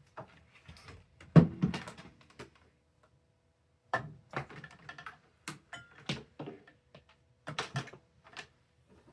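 Irregular clunks, knocks and clicks of a fan being handled and set up, with a louder thump about a second and a half in.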